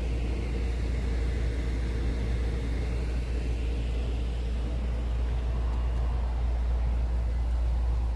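Steady low rumble with a faint hiss over it, unchanging throughout.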